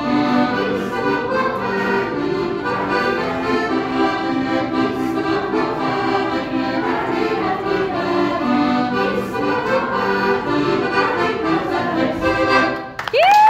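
Accordion-led Slovenian folk dance tune with a steady beat, which stops about twelve and a half seconds in. A loud high held note cuts in right at the end.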